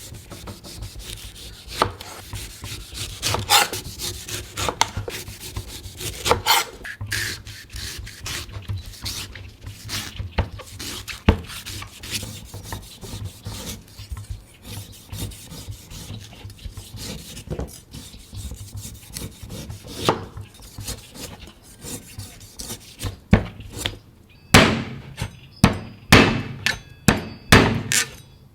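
Knife cutting a coconut: scraping and shaving strokes across the husk with scattered knocks, then a run of sharp, evenly spaced chops near the end.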